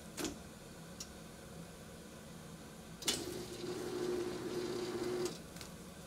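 L-bar shrink sealer at work: the seal head knocks shut, then a sharp clack about three seconds in and a steady electric hum for about two seconds that stops suddenly as the machine runs its seal-and-transfer cycle.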